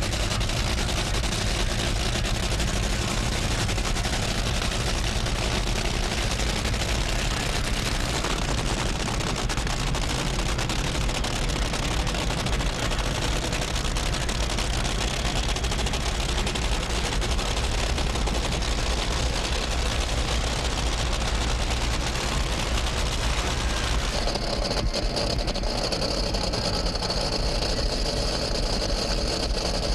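Top Fuel dragster engines (supercharged nitromethane V8s) running with a harsh, rapid crackle like gunfire. The sound stays loud throughout, and its texture changes about three-quarters of the way in.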